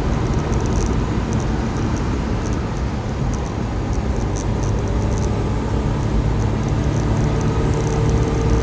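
Suzuki Carry kei truck's K6A three-cylinder turbo engine running, a steady low mechanical noise with faint irregular ticks over it.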